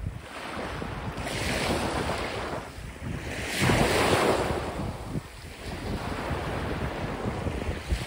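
Small sea waves breaking and washing up a sand-and-pebble shore in repeated surges, the loudest one splashing right at the microphone about four seconds in. Wind noise on the microphone throughout.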